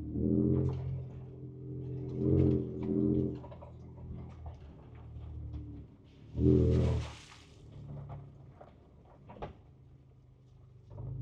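Ford Ranger Raptor's twin-turbo V6 heard from inside the cab, idling low with three short bursts of throttle while crawling a rough trail. A brief hiss follows the third burst. Scattered clicks and knocks from the cabin and suspension run throughout.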